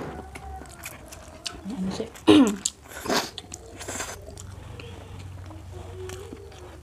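Close-up slurping and chewing of spicy instant noodles, with wet mouth smacks and clicks, a short voiced exclamation a little after two seconds in, and a sip from a glass near the middle.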